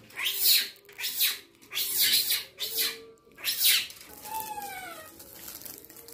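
A run of loud rustling noises, then, about four seconds in, a single animal call falling in pitch.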